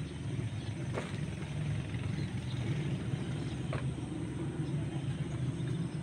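A steady low engine rumble, with a couple of faint clicks.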